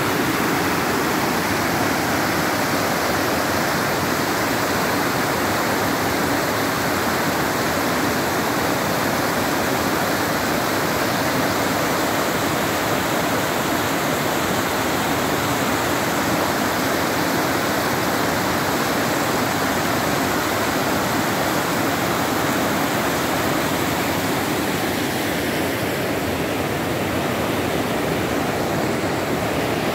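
Floodwater from a full reservoir spilling over its rocky overflow spillway, churning in white rapids into the river below. It gives a steady, loud rushing sound throughout.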